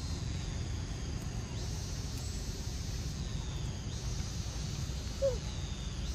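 Outdoor forest ambience: a steady low rumble under a thin, high, steady insect drone, with one short rising-and-falling squeak about five seconds in.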